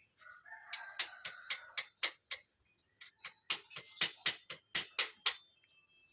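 Two quick runs of sharp knocks or taps, about four a second, with a short pause between the runs.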